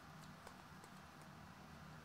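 Near silence, with a few faint clicks of trading cards being flipped through by hand.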